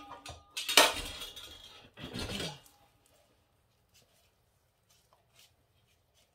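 Metal spoon clattering against stainless steel bowls in two quick bursts of clinks with a little ringing, then near quiet with a few faint ticks.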